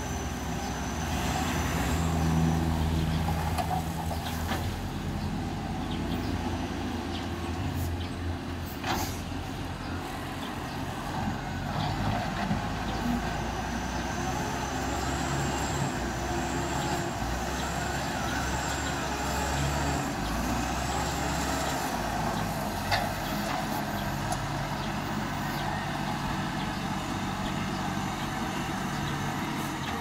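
Compact wheel loader's diesel engine working under load as it pushes a pile of dirt, the engine note rising and falling with the effort, with a few sharp knocks.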